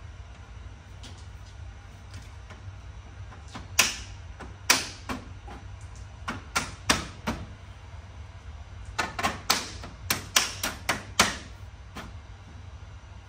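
Plastic retaining tabs of a BMW 8 Series kidney grille clicking into the front bumper as the grille is pressed home. The clicks are sharp: a scattered handful about a third of the way in, then a quicker run of about eight shortly after the middle.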